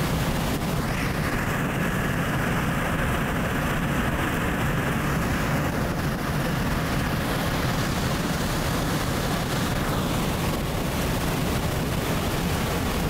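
Steady rushing roar of jet aircraft in flight, a continuous even noise of engines and air with no distinct events.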